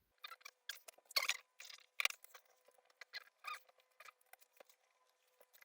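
Small metal-on-metal squeaks, clicks and scrapes at an irregular pace, from taking out a laptop's processor heatsink. Two sharper clicks come about a second and two seconds in.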